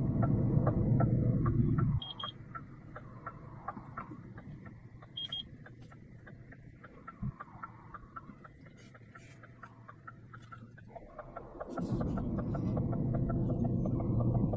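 Heavy diesel machinery rumbling low. The rumble drops away suddenly about two seconds in, leaving a steady fast ticking of about four ticks a second and two short high beeps, and comes back near the end.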